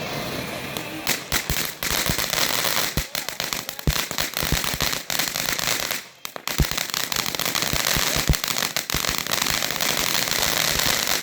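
Consumer ground firework going off: a steady hiss packed with rapid, irregular crackling pops, which dips briefly about six seconds in and then resumes.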